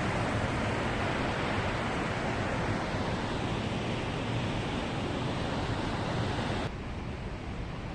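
Water rushing through a dam, a steady noise that drops suddenly to a quieter level near the end.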